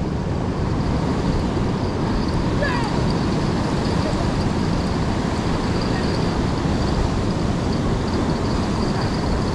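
Steady noise of wind and breaking ocean surf, strongest in the low rumble, with no clear separate events.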